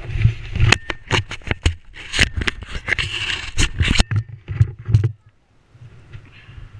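Scraping, rustling and sharp knocks of handling right against a helmet camera's microphone, over an irregular low rumble, with the knocks thickest in the first four seconds.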